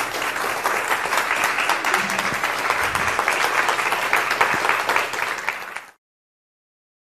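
Audience applauding: dense, steady clapping that cuts off suddenly about six seconds in.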